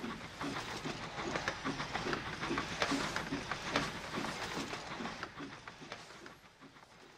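Train moving on rails: a rhythmic clatter of about two to three beats a second that fades away over the last couple of seconds.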